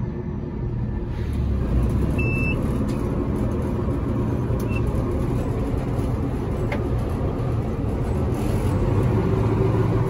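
Gleaner combine harvester running steadily while cutting soybeans: a continuous engine and threshing-machinery drone heard inside the cab.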